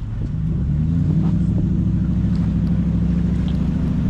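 An engine speeding up over the first second, then running at a steady higher speed.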